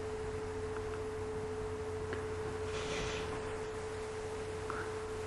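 A steady single-pitched hum holding one unchanging tone, with a fainter low hum beneath it and a brief soft hiss about three seconds in.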